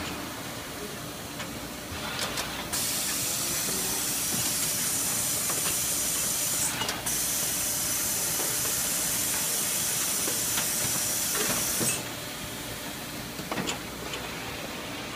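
Loud hiss of air blowing on an automated Koyo grinding line, starting about three seconds in, dropping out for a moment near seven seconds and cutting off suddenly about twelve seconds in. The line's machinery hums steadily underneath, with a few clicks and knocks from its part handling.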